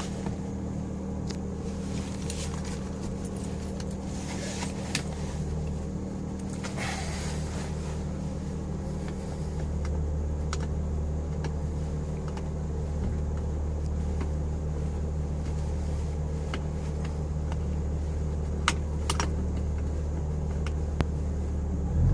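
2011 Mazda MX-5 Miata (NC) 2.0-litre four-cylinder engine idling steadily after a cold start, its low hum growing a little louder about ten seconds in. A few sharp clicks come through near the end. The owner suspects a vacuum leak.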